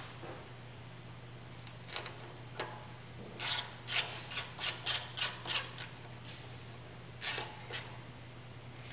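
Socket ratchet on a long extension running a bolt into a motorcycle engine. There are two short ratcheting strokes about two seconds in, then a quick run of about seven, then two more near the end.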